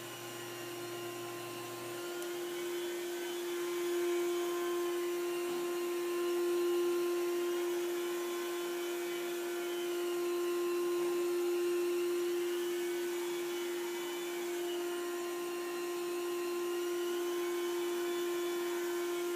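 Portable carpet extractor's vacuum motor running steadily, a constant whining hum, as the carpet is given its drying pass.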